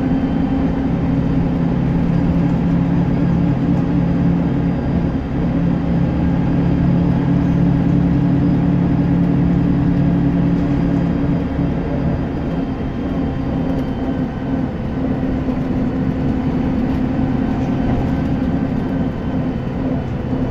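Scania bus's diesel engine and drivetrain running under way, heard from inside the passenger saloon with road rumble. The engine note holds steady, then eases off a little about twelve seconds in.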